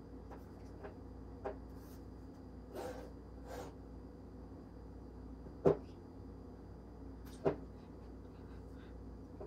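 Small plastic toys and a nail-polish bottle set down and handled on the top of a cardboard box: a few light knocks and taps, the sharpest about six and seven and a half seconds in, over a faint steady hum.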